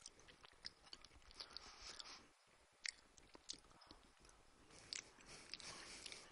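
Faint close-up chewing of food, with small wet mouth clicks scattered through it.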